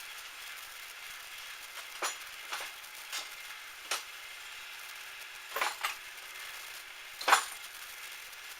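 Sharp metallic clinks, about seven of them at irregular spacing, the loudest near the end, over a steady hiss, as of metal tools or parts being handled at a metal lathe.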